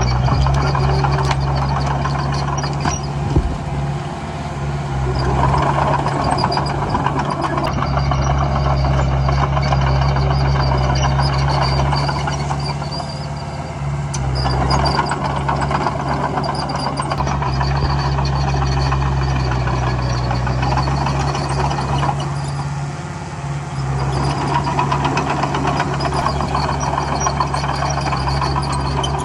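Diesel engine of a Komatsu D20A bulldozer running steadily while it works. A dense rattling swells and eases three times, roughly every nine seconds.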